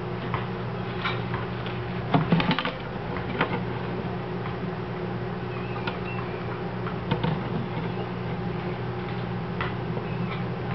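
Scattered small clicks and rustles from gerbils moving about a cage bedded with wood shavings, with a cluster of them about two seconds in, over a steady low hum.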